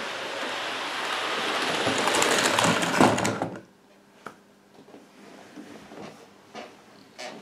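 OO gauge model train running on the track close by, its steady rumble and rattle growing louder as it approaches, then cutting out suddenly about three and a half seconds in as the train stops short. A few faint clicks follow.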